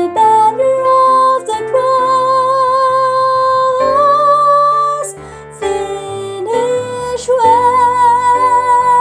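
A soprano voice singing long held notes with vibrato over instrumental accompaniment.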